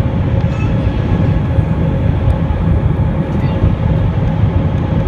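Cabin noise of an Airbus A320-232 climbing after takeoff, heard from a window seat over the wing: its IAE V2500 engines and the airflow make a steady, loud low roar with a faint steady hum above it.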